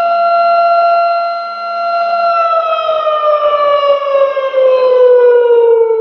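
A siren wailing on one steady pitch, then sliding slowly down in pitch from about two seconds in as it winds down.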